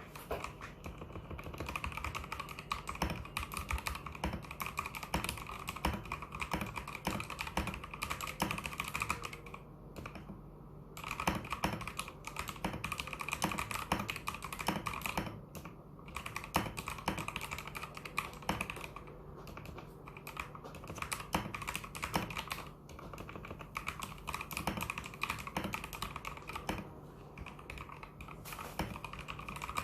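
Modded Vortexseries VX64 Lite mechanical keyboard with Gateron Yellow linear switches and XDA keycaps being typed on fast and continuously, a dense run of keystroke clicks with a few short pauses.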